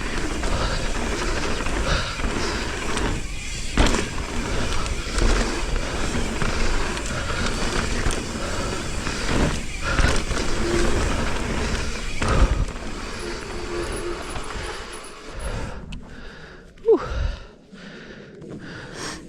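Mountain bike riding fast down a dirt trail: a steady rush of wind and tyre noise with knocks from bumps and landings. It goes much quieter near the end, with a few sharp clicks.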